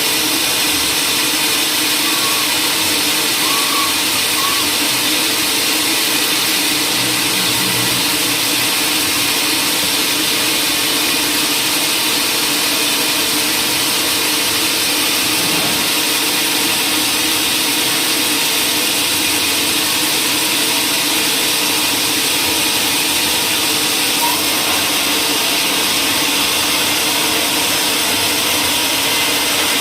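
Woodworking machinery running steadily: a constant machine drone with a steady hum and hiss, unchanging throughout.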